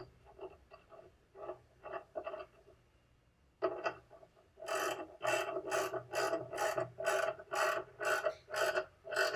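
Socket ratchet clicking as bolts are run down into riv nuts in a truck bed floor. A few scattered clicks come first, then from about four seconds in a steady run of ratchet strokes, about two a second.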